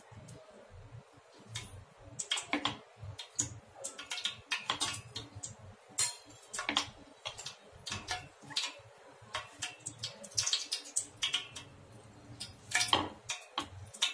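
Oil heating in an aluminium pot, crackling with irregular sharp pops.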